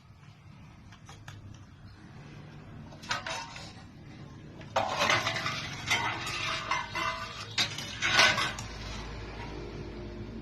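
Metal clinking and clattering in bursts: a short one about three seconds in, then a longer run of rattling from about five to eight seconds. A low hum comes in near the end.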